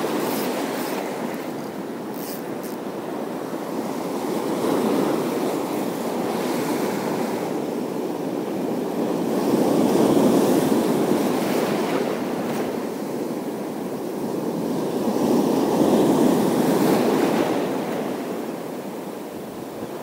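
Sea waves washing onto the shore in slow surges, swelling and fading about every five to six seconds.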